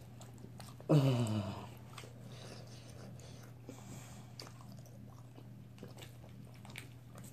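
Faint chewing and small clicks of people eating chicken wings, over a steady low hum. About a second in, a person lets out one short, loud vocal sound that falls in pitch.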